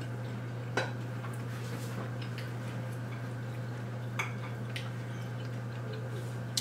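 Forks clicking a few times against plates and bowls during a meal, over a steady low hum.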